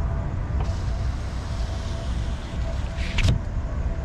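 Car running and rolling slowly, a steady low rumble. A hiss rises over it for about two seconds, and there is a short sharp noise about three seconds in.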